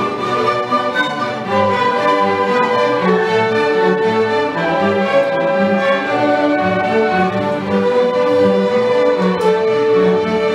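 Orchestra with violins and cellos playing an overture live: held melodic string notes over a steady, pulsing low accompaniment.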